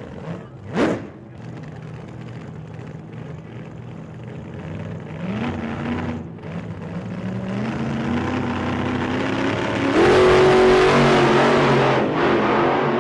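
Car engine running and accelerating, its pitch climbing in steps, with a brief whoosh about a second in. It is loudest from about ten seconds in.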